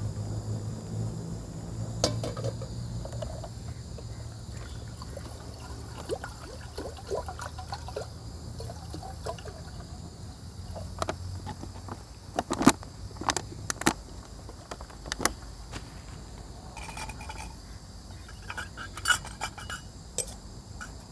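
Water being poured and metal cookware and utensils clinking while water is readied for heating on a camp stove, with a cluster of sharp clinks a little past the middle.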